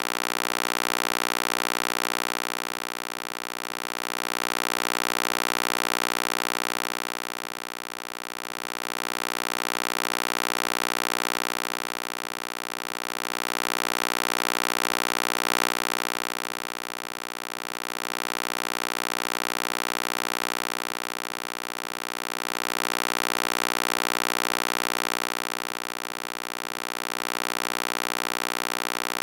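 Synthetic EMDR stimulation sound: a steady electronic drone of many held tones with a hiss above, swelling and fading slowly about every four and a half seconds. One brief click about halfway through.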